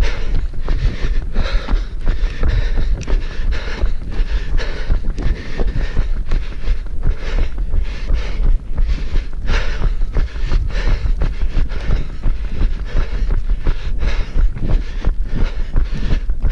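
Running footsteps and brushing of clothing or branches, with the irregular knocks of a body-worn camera jostling at every stride, over a heavy low rumble of wind on the microphone.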